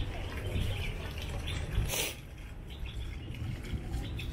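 Water from a small fountain jet splashing and dripping into a tiled pool, over a steady low rumble, with one short, sharp hiss about two seconds in.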